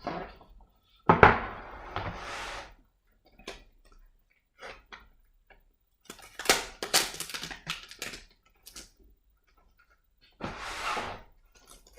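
Handling noises from the laptop's box and packaging: a sharp knock about a second in, then short bursts of rustling and a run of small clicks and scrapes.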